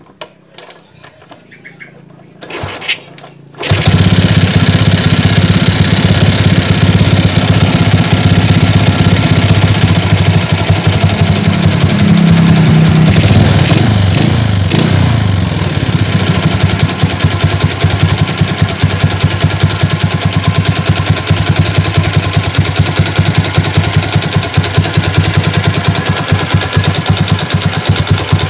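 A bored-up Yamaha Vega four-stroke single-cylinder motorcycle engine starting after a couple of short cranking attempts and catching about three and a half seconds in, then running with a steady pulsing beat. The revs rise and fall once around twelve to fifteen seconds in before it settles a little lower; the owner calls the engine a bit rough.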